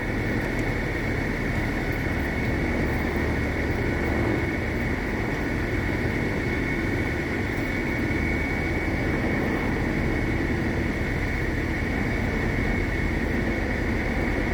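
Steady engine drone with a constant high whine over a low rumble. It builds up over the first second and cuts off with a click just after the end.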